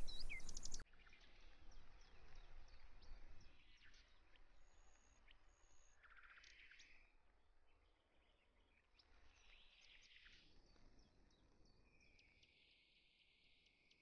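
Faint outdoor ambience with scattered bird chirps and calls. It opens with a loud burst of noise under a few rising chirps lasting under a second. About five seconds in there are two brief high steady notes, and a steady high trill near the end.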